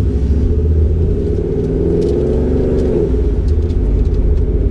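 Modified Ford Ranger pickup's engine and exhaust heard from inside the cab, running at low speed with a deep rumble. The engine note rises a little and drops back about halfway through.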